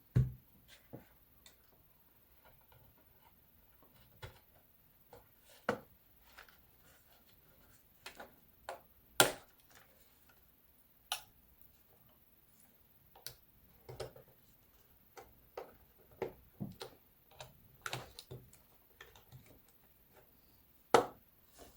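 Irregular light clicks and knocks from handling the opened plastic radio-controller case and its parts, with a sharper knock about nine seconds in and another near the end.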